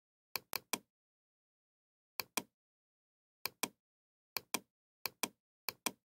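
Computer mouse button clicking: about six pairs of sharp clicks, each pair a press and release about a fifth of a second apart.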